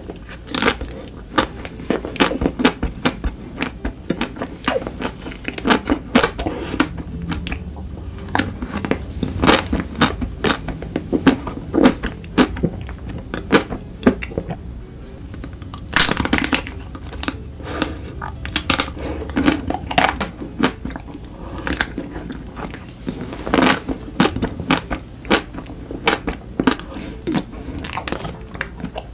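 Close-miked biting and chewing of chocolate: a dense, irregular run of crunches and mouth clicks.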